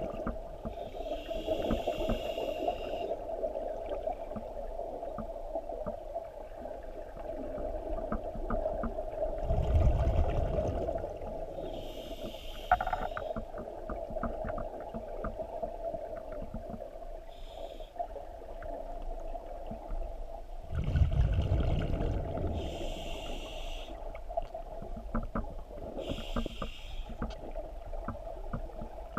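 Scuba diver breathing through a regulator underwater: several short hissing inhalations, and twice a rumbling surge of exhaled bubbles, about ten seconds apart.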